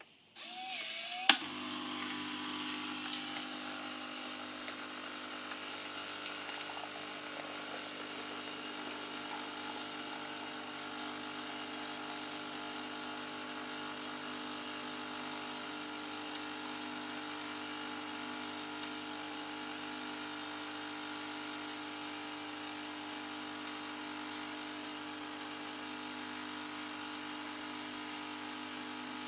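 Krups Dolce Gusto Creativa capsule coffee machine starting to brew: a short rising whine and a sharp click about a second in. Then its pump runs with a steady hum as the café au lait streams into the glass.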